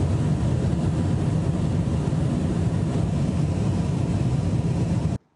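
Wind rushing through the open hole in the side of a Boeing 737 MAX 9's cabin, where a panel blew out and the cabin depressurized, heard as a loud, steady, deep noise. It cuts off suddenly about five seconds in.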